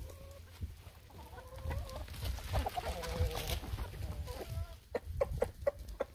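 Backyard hens clucking as they forage, with drawn-out clucks in the middle, then a quick run of short sharp taps near the end.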